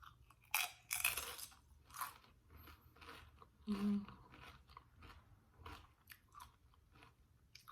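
Doritos tortilla chips dipped in queso being bitten and chewed close to the microphone: loud crisp crunches, the loudest in the first second or so and again near the middle, then softer chewing.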